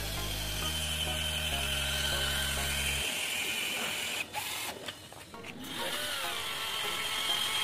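Sealant gun pressing a bead of sealant into the seam between a window frame and a brick wall, with mechanical clicking, over background music whose low bass notes stop about three seconds in.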